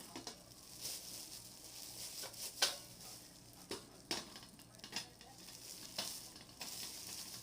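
Packaging being unwrapped and handled: irregular crinkling and rustling with sharp crackles, the loudest a little over two and a half seconds in.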